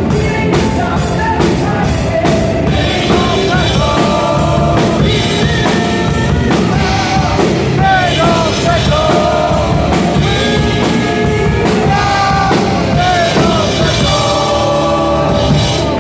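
Live power metal band playing: electric guitar and drum kit with steady cymbal strikes, under a male lead singer holding long, wavering notes into the microphone.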